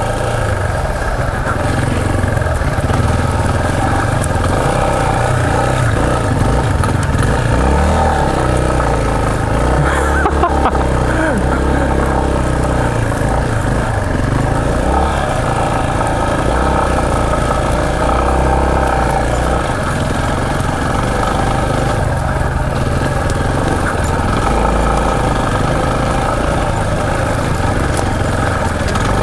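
Yamaha Serow 250's air-cooled single-cylinder four-stroke engine running at low speed over a rough forest trail, its note rising and falling with small blips of throttle.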